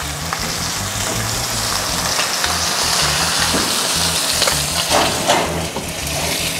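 Ribeye steak sizzling in canola oil in a hot cast iron skillet as the pan is moved into the oven. Two clunks about five seconds in come as the skillet is set on the oven rack.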